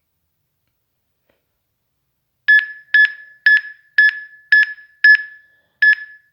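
Electronic beeping from a ghost-hunting detector: seven short, high single-pitch beeps about two a second, starting about two and a half seconds in, with one skipped beat near the end. The alert is taken as a sign that a spirit has come close to the device.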